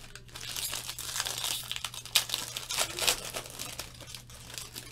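A foil pack of Topps Museum Collection football cards being torn open and crinkled by hand: a dense, irregular run of crackles.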